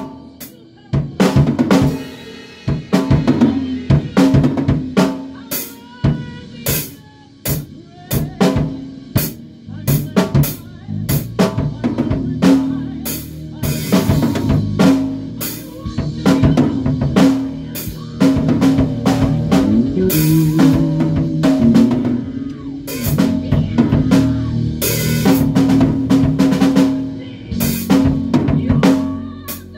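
A band rehearsing: a drum kit playing a steady beat with kick, snare and cymbal crashes over a held, moving bass guitar line.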